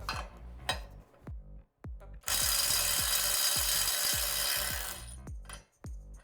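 Kobalt XTR cordless impact driver hammering at speed 3 for about three seconds, starting about two seconds in, as it breaks loose a nut torqued to 350 foot-pounds. Background music with a steady beat plays throughout.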